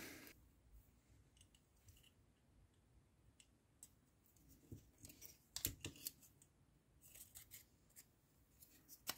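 Faint plastic clicks and light taps as the folding wing mirror's small fold motor and plastic gear housing are handled and pressed together, a few scattered clicks about halfway through and again near the end; otherwise near silence.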